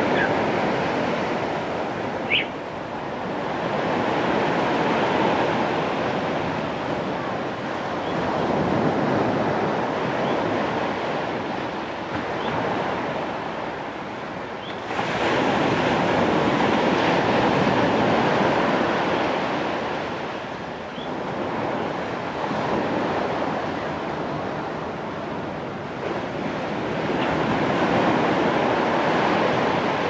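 Sea surf: waves breaking and washing up the shore, the rush swelling and ebbing every few seconds, with a bigger wave breaking about halfway through.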